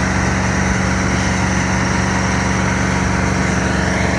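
An engine idling steadily, with a constant low hum and no change in speed.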